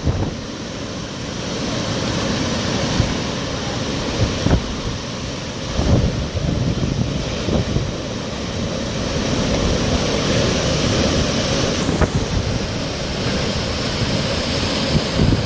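Hurricane wind rushing and gusting, buffeting the microphone with low rumbling surges, with a few faint sharp clicks.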